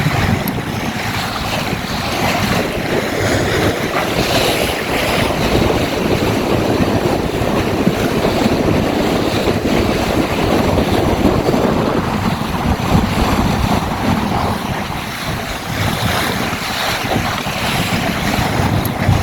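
Wind buffeting the microphone over water rushing and splashing along the hull of a small open Magnum 422 sailboat under way in strong wind. A steady, loud rush that swells and eases a little.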